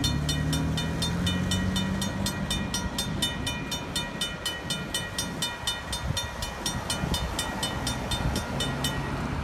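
Railway crossing bell ringing steadily, about four to five strikes a second, with the crossing set off by a long switching train; it stops just before the end. Cars drive across the crossing as it rings.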